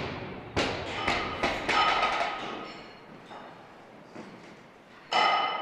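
Loaded Olympic barbell with rubber bumper plates dropped onto the lifting platform: a thud about half a second in, then several quicker bounces with metallic ringing from the bar and plates. Another loud thud with ringing comes near the end.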